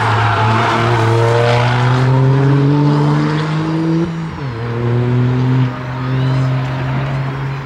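Toyota GR Yaris's 1.6-litre turbocharged three-cylinder engine accelerating hard on track. The revs climb, drop with an upshift about four seconds in, climb again and dip with another shift near six seconds in, a little quieter as the car pulls away.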